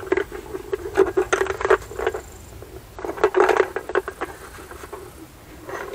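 Parts of a pool filter pump being unscrewed and taken apart by hand: clicks and rattles of small hard parts, in three short bursts.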